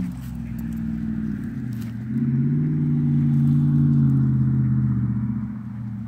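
A motor vehicle engine running with a low, steady hum; it grows louder and rises a little in pitch about two seconds in, then eases off near the end.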